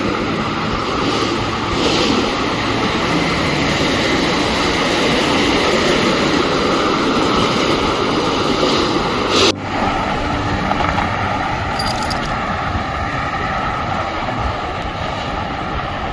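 Steady wind rush and road noise from riding an open electric tricycle through traffic, with a brief break about nine and a half seconds in.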